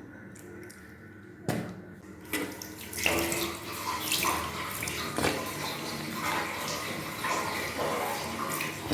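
Water splashing and running, with a couple of short splashes before it settles into a steady, louder pour about three seconds in.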